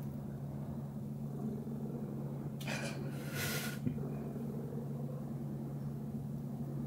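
Domestic cat purring loudly and steadily, a deep continuous rumble of a contented, relaxed cat. Two brief soft hissing noises come about three seconds in.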